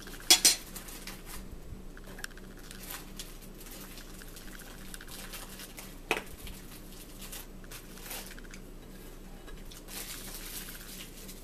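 Fingers pulling apart baked chicken and handling food on a plate: soft tearing and squishing, with sharp clicks about half a second in and again around six seconds in.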